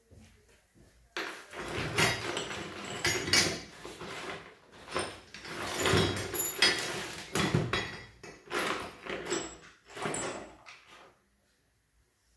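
Tools and metal parts being handled off to the side: irregular clattering and rattling that starts about a second in and stops shortly before the end.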